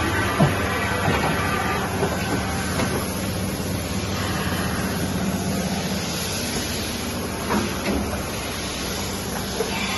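Kasuga Q-600G CNC milling machine running: a steady mechanical hum with a few short knocks and clicks.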